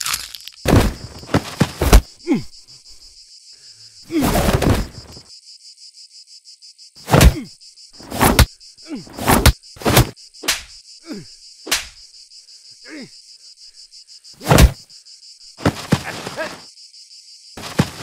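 Fight-scene sound effects: a string of sharp punch and body-blow hits at uneven intervals, some followed by a short downward glide in pitch. Under them runs a steady high insect drone of cicadas or crickets.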